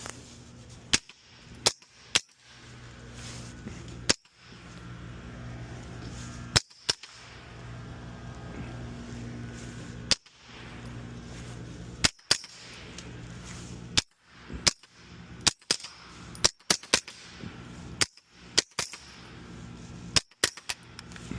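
Suppressed 9mm pistol-caliber carbine (UTAS UT9M with a Rugged Obsidian 9 suppressor) firing subsonic rounds: sharp, short shots, about twenty of them, some single and some in quick doubles and triples, with a steady low hum underneath.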